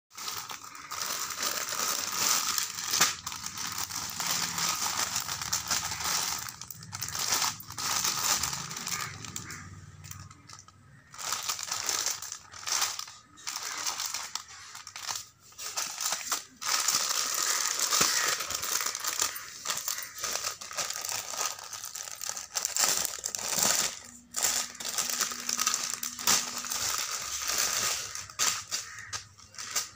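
Plastic packaging crinkling and rustling as a courier polybag is handled and opened and a garment is pulled from its clear plastic wrapper. The crinkling comes in irregular stretches with short pauses.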